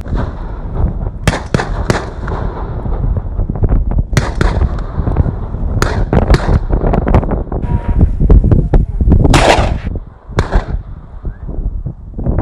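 Hunting guns firing a rapid, irregular volley of about eight sharp shots, roughly a second apart, at a running wild boar.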